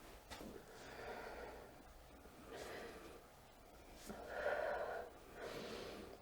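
A person breathing heavily: about four loud, drawn-out breaths under a second each, the loudest about four and a half seconds in, as a body is stretched during a chiropractic session.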